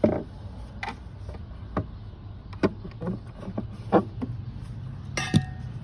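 Irregular clicks and knocks of a 2002 Dodge Durango's plastic tail light housing being handled and pressed into its opening, about six in all, with a sharper ringing clack near the end. A steady low hum lies underneath.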